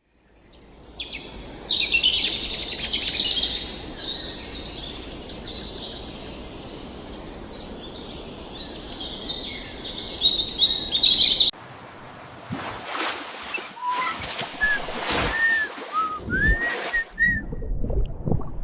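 A dense chorus of birds chirping and singing for about ten seconds, then it cuts off abruptly and gives way to a quieter stretch of sharp clicks or knocks and a few short whistled calls.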